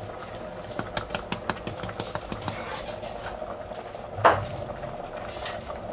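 Thick tomato sauce simmering in a stainless steel pot, bubbles popping with irregular small ticks, and one louder knock about four seconds in.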